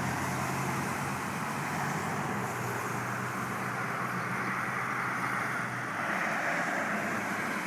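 A vehicle engine running with a steady low hum under a broad rushing noise; the hum stops about six seconds in while the rushing grows a little louder.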